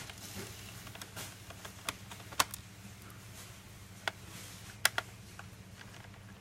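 Scattered light clicks and taps of small laptop parts being handled during a cooling-fan replacement, with sharper clicks about two and a half, four and five seconds in, over a faint steady low hum.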